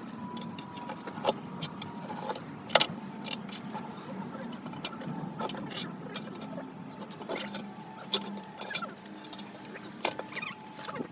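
Metal hand tools clinking, knocking and scraping at irregular moments while a tractor tyre is changed by hand; one knock about three seconds in is the loudest.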